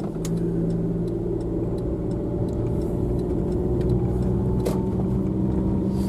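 A car's engine and road noise heard from inside the cabin. It grows louder as the car picks up speed at the start, then runs steadily.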